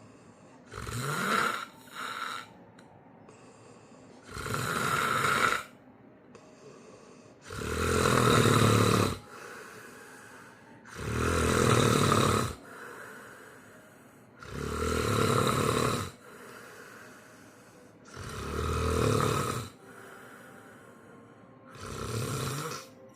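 A sleeping person snoring loudly: seven snores in a regular rhythm, one about every three and a half seconds, each lasting a second or two, with quiet breathing gaps between them.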